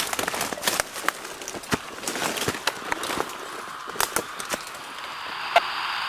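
Footsteps crunching through dry leaf litter, with twigs and brush cracking and rustling as a person pushes through thick forest undergrowth: an uneven string of sharp cracks. About five seconds in, a faint steady high hiss sets in beneath them.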